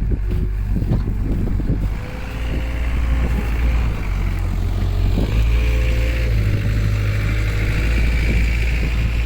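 A motor vehicle's engine running, with steady low wind rumble on the microphone.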